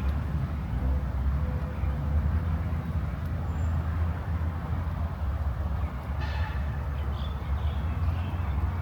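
Steady low rumble of outdoor ambience, like distant traffic or wind, with a few faint bird chirps about six and seven seconds in.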